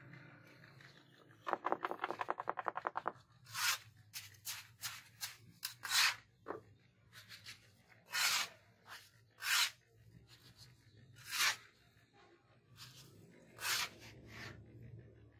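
Gritty scrapes of coarse cement mix being scooped up and pushed into a tile mould by hand: a dozen or so separate short strokes. About a second and a half in comes a quick rattling run lasting about a second and a half.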